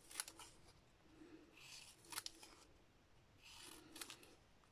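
Small scissors faintly snipping the corners off a square of patterned paper mounted on card: three short snips about two seconds apart, with light paper rustling between them.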